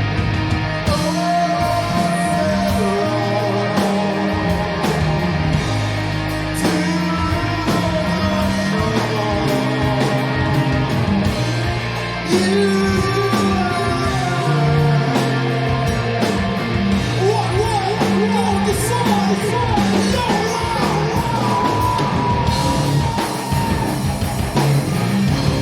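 Stoner rock band playing live, with distorted electric guitars, bass and drums, and a singer's vocals over them.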